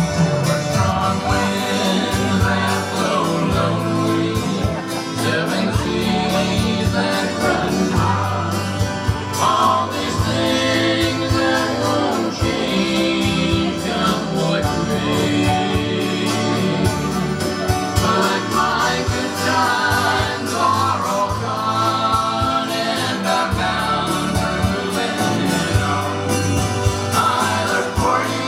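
Live band performing a song: singing over guitars and other instruments.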